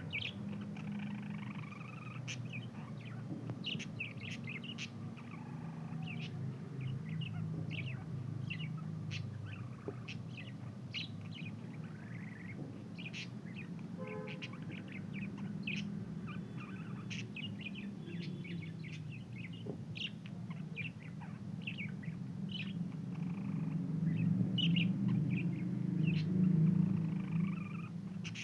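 Pet budgerigars chirping and chattering in many short, quick calls, over a steady low rumble that swells near the end.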